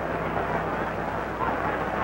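Steady crowd noise from a large stadium boxing crowd, heard through the hiss and hum of an old film soundtrack, with indistinct voices in it.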